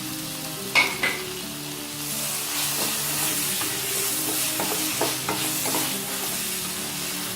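Onions sautéing in oil in a pan, sizzling and being stirred with a metal spoon. Two sharp ringing clinks of the spoon on the pan come about a second in; the sizzling grows louder about two seconds in, with a few more spoon knocks after that.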